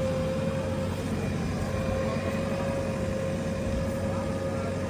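Heavy diesel machinery engine running steadily, a constant whine over a low rumble.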